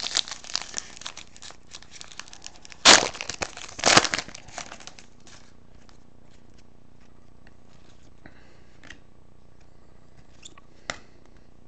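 Trading-card pack wrapper crinkling as it is torn open and handled, with two louder tearing bursts about three and four seconds in, then only a few faint clicks of cards being handled.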